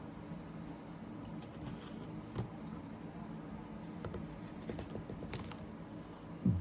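Faint clicks and light taps of holster and magazine-holder gear being handled on a tabletop, scattered a second or so apart, over a steady low hum.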